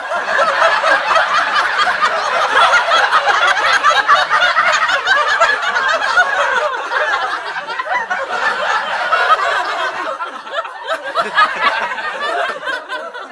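AI-generated sound effect of a crowd of many people laughing and chattering at once, easing off somewhat from about six seconds in.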